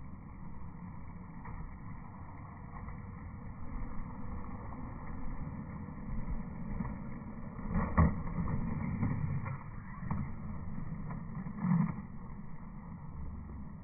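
Skateboard wheels rolling on smooth concrete, a steady low rumble, with two sharp clacks of the board, one about eight seconds in and another near the end.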